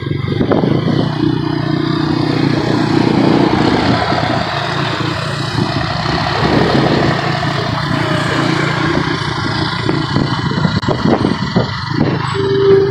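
Motorcycle engine running in traffic with steady wind and road noise, a few knocks in the second half and a short beep near the end.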